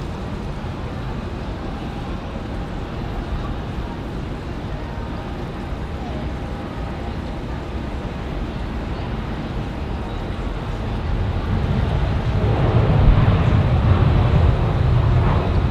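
Jet airliner engines rumbling steadily, swelling louder about twelve seconds in.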